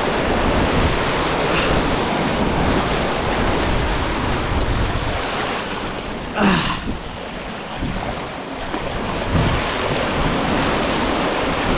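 Ocean surf breaking and washing over the rocks in a steady rush of foaming water, with wind on the microphone. A brief louder sound cuts through about six and a half seconds in.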